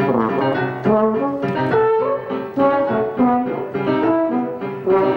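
A brass instrument playing a melodic line of held notes with piano accompaniment, the notes changing about every half second over struck piano chords.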